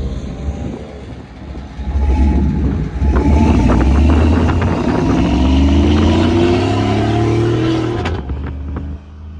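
Pickup truck engine and exhaust accelerating hard, the note rising steadily for several seconds as the truck pulls away, then cutting off abruptly about eight seconds in.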